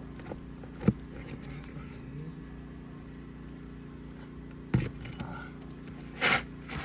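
Hand tools working at a sealed asphalt roof shingle that is stuck down: a sharp knock about a second in, another near five seconds, and a louder scraping rasp near the end, over a steady low hum.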